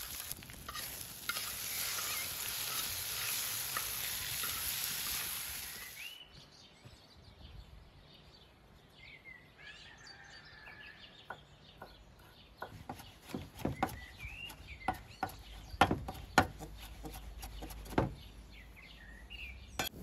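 Eggs, mushrooms and vegetables sizzling in hot fat on a large round steel pan; the sizzle stops abruptly about six seconds in. Then a few bird chirps and a run of sharp knocks of a knife on a wooden board.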